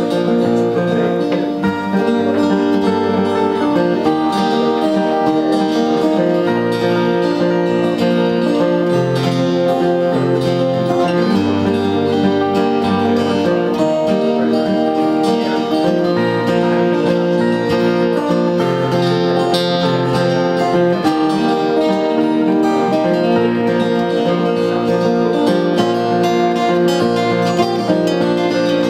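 Several acoustic guitars played together, strumming chords over a moving low line, with no singing.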